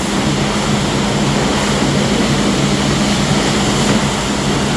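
Steady mechanical hum and hiss of a truck wash at work on a truck, with a constant low drone underneath.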